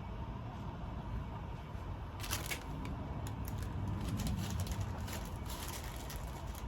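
Hands rummaging through small chainsaw parts, with light irregular clicking and rustling that starts about two seconds in, over a steady low background hum.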